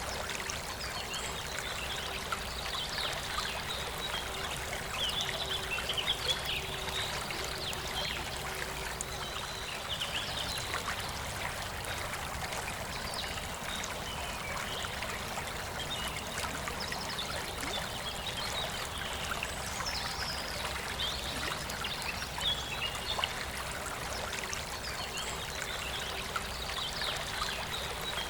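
A forest river flowing steadily, with birds chirping now and then above the water.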